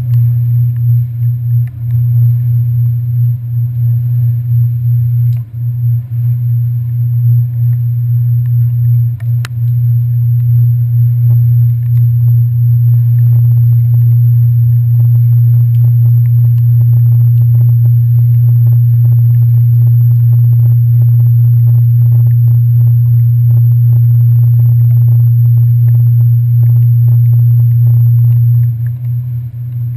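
Low, steady hum of a passenger ferry's engines, carried through the deck into a handlebar-mounted camera. It is loud and even, and eases a little near the end.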